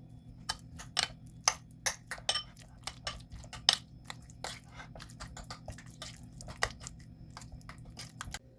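Kitchenware clinking and knocking: a run of sharp, irregular clicks, a few a second, as dishes and utensils are handled during food preparation.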